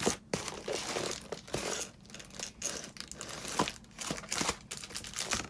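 Packing material rustling and crinkling as hands rummage through a cardboard shipping box, with irregular crackles and small knocks.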